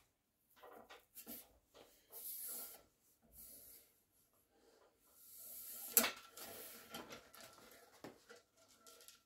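Rod carrying polishing fleece pushed and drawn through a rifle barrel's bore to polish it, giving faint rubbing and scraping strokes, with one sharp tap about six seconds in.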